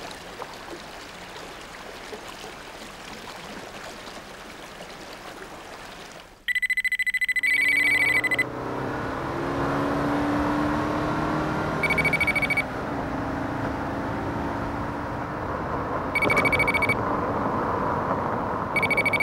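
A faint, steady rush of river water. About six seconds in, an electronic trilling beep like a telephone ring starts and sounds four times over a background of soft synthesized tones.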